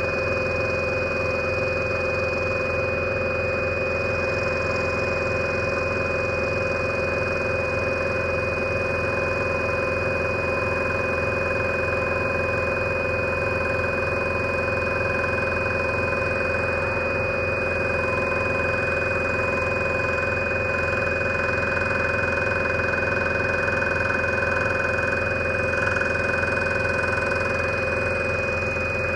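Large Scroller 800 scroll saw running steadily, its motor humming with a high steady whine while the fine No.2 blade saws through thin wood.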